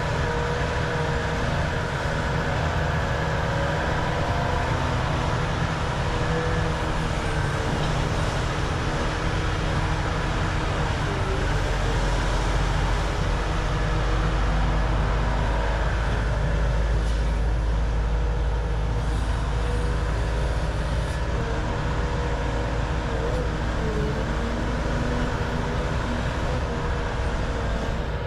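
Volvo EC550 excavator's diesel engine and hydraulics running steadily as it digs, with wavering engine tones and a deep low rumble that swells in the middle.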